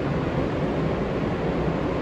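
R143 subway train running, heard from inside the car: a steady noise of wheels on rail and running gear, strongest in the low range and unchanging in level.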